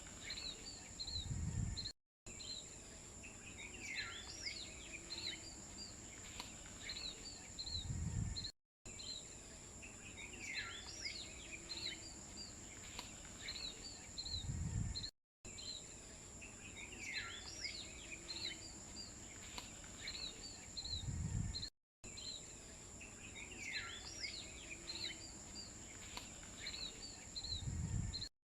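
Birds chirping over a steady high insect-like drone, a short nature-ambience recording looped: the same stretch repeats about every six and a half seconds, each time ending in a low thump and a brief cut to silence.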